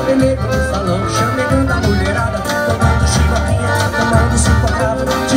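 Live forró pé-de-serra band playing: accordion holding chords over acoustic guitar, with a steady low drum beat and sharp percussion strikes.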